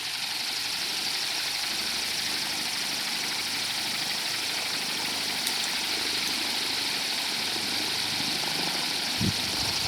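Electric propeller fan built from a washing-machine motor and a 35-inch propeller, running steadily on a 24 V battery: an even rush of blown air. A few low thumps near the end.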